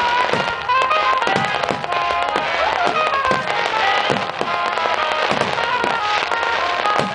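Fireworks display: about a dozen booms of firework shells bursting, one or two a second, over music with long held notes.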